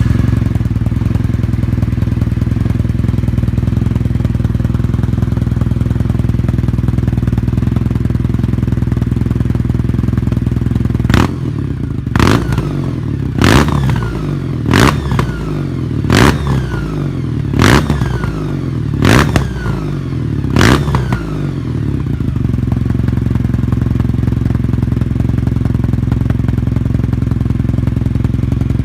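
Kawasaki W800 parallel-twin engine through a stainless aftermarket exhaust, idling steadily. About a third of the way in, the throttle is blipped about eight times, roughly every second and a half, each rev rising and falling back to idle. It then settles back to a steady idle.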